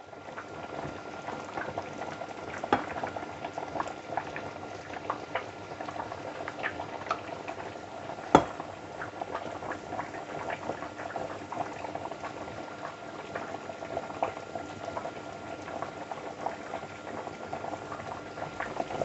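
Soup simmering on a stovetop: a steady bubbling with many small pops. About eight seconds in there is one sharp clink.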